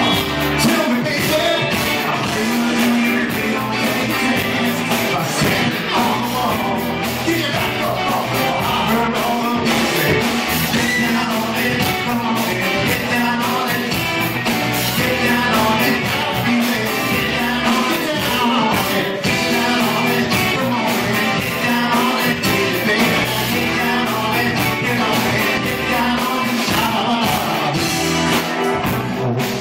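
Live rock cover band playing, with a man singing lead over drums, bass guitar, electric guitar and keyboards; steady and loud, with cymbals and drum hits throughout.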